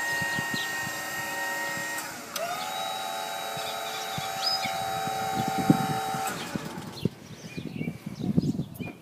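Electric Liftmore truck crane motor running with a steady whine. One run stops about two seconds in; a second run starts right after, winds up in pitch, holds steady and stops about six seconds in. Irregular clanks and rattles of the crane's mechanism follow.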